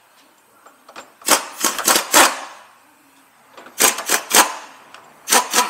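A power wrench rattling on bolts in short bursts, three groups of bursts, the first and longest about a second in.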